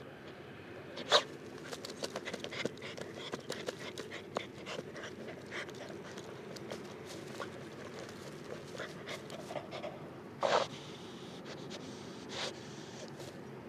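Jack Russell terrier panting and snorting, with many short scratchy clicks and a few louder snorts, about a second in and again around ten seconds.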